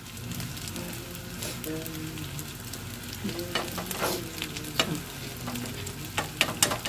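Potato, pepper and egg omelette sizzling as it fries in a pan. A metal spoon clicks and scrapes against the pan several times, mostly in the second half.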